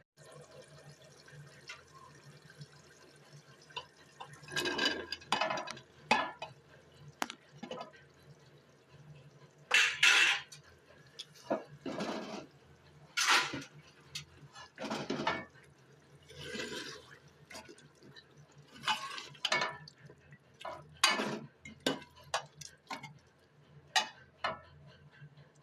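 Cooking pot and utensils: irregular clinks and short watery sloshes, about one every second or two, over a steady low hum.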